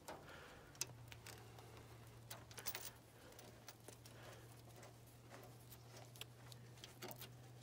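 Faint, scattered small clicks and light scraping as a lock nut is started by hand onto a plow marker's bolt under a steel plow blade, over a steady low hum.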